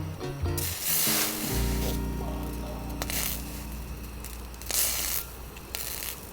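Background music with a long held low note, over four short bursts of hissing from food sizzling in a hot pan. The first burst, about half a second in, is the longest.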